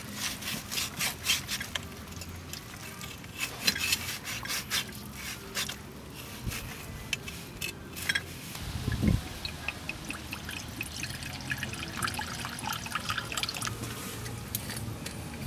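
Cleaver cutting and tearing a whole grilled duck apart by hand, the crisp skin and juicy meat giving a run of sharp, wet crackling clicks. There is a dull thump about nine seconds in, followed by fainter, finer crackling.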